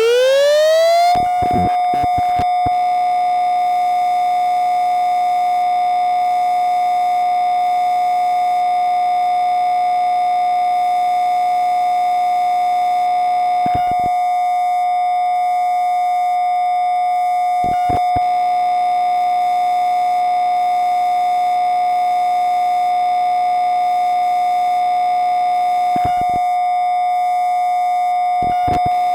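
Spinning riser sound effect: a synthetic tone that finishes sweeping upward about a second in, then holds one steady pitch with overtones, broken a few times by brief clicks.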